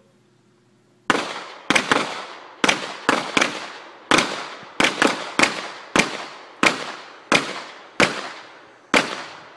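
A string of about fifteen gunshots, starting about a second in and spaced irregularly at one to two a second, each followed by a ringing echo. Two shooters are firing in turn while buddy bounding, one covering as the other moves.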